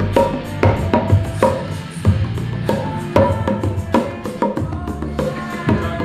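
Music with a steady drum beat over a bass line, the drum hits coming about twice a second.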